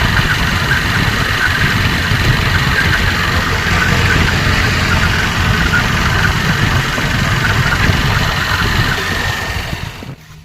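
A motor running steadily and loudly, with a fast low rumble, cutting off abruptly near the end.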